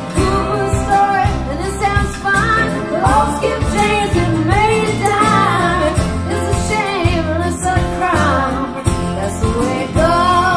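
A woman singing a song with band accompaniment, played back through a pair of KLH Model 5 loudspeakers and picked up in the room by microphones about ten feet away.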